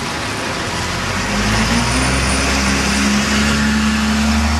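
A heavy vehicle's engine comes in about a second in, a low drone whose pitch edges slightly upward, over steady street noise.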